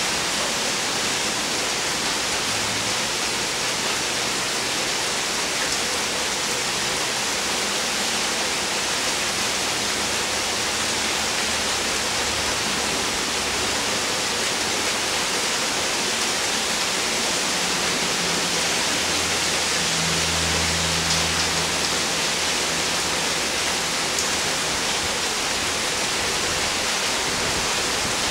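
Heavy rain pouring down steadily in a thunderstorm, a constant hiss of water. A low rumble comes and goes twice, the stronger one about twenty seconds in.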